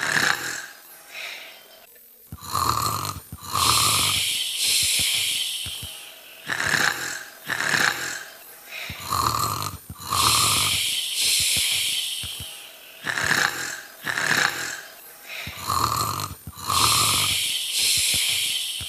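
A girl's voice imitating snoring, cartoon style. Each snore is two short nasal snorts followed by a long hissing breath out. The same cycle repeats about every six and a half seconds, three times.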